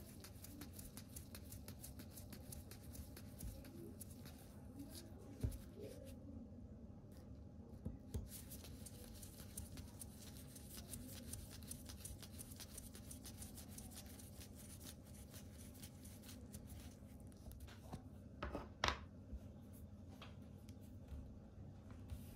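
Faint ticking and scraping of a small precision screwdriver turning tiny screws into the metal rear mount plate of a vintage M42 lens, with a few light knocks and a sharper click near the end. A low steady hum sits underneath.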